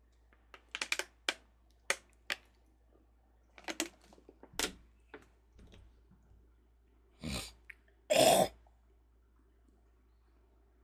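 A man drinking from a bottle: a string of short gulps and clicks over the first few seconds, then he coughs twice, about seven and eight seconds in, the second cough the louder.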